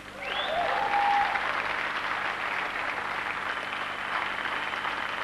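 Studio audience applauding and cheering, swelling up within the first second and then holding steady.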